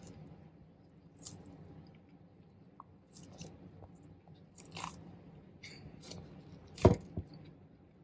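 Red-footed tortoise biting and crunching its food: scattered crisp bites, with a sharp knock about seven seconds in.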